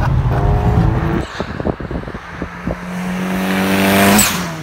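Turbocharged Ford Focus engine accelerating. About a second in there is a stretch of rapid sharp pops. The engine note then swells as the car closes in and sweeps past near the end.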